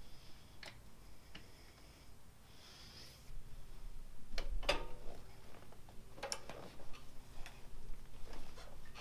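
Half a dozen scattered clicks and knocks of hand tools and metal parts being handled, the loudest pair of clanks about four and a half and six seconds in.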